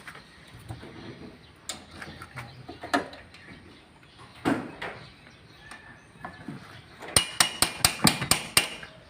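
Metal hand tools clinking and knocking against engine parts, with scattered clicks. Near the end comes a quick run of about nine sharp, ringing metallic taps, about six a second.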